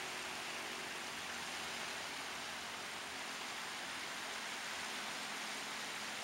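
Steady, even hiss-like rushing noise with no rise and fall, with a faint low hum beneath it.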